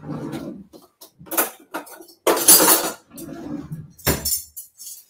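Metal cutlery clattering and clinking as a knife and fork are taken from a kitchen drawer, with the loudest clatter about two and a half seconds in and a sharp thump about four seconds in.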